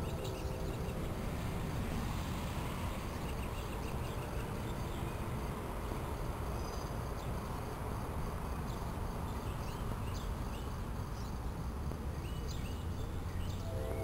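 Small birds chirping and twittering in short, scattered calls over a steady low background rumble.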